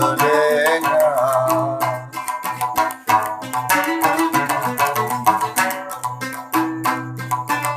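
A large gambus, the Sasak plucked lute, played in a run of quick plucked notes over a low repeated bass note. A sung line with a wavering held note ends about two seconds in, and the gambus carries on alone.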